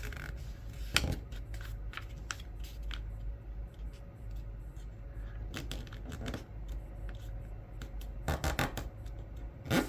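Sheet of paper being folded and creased by hand: soft rustling, with a few sharp crinkles about a second in and again near the end.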